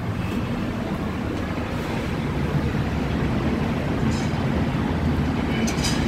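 Mumbai Metro train running on the elevated line, a steady low rumble.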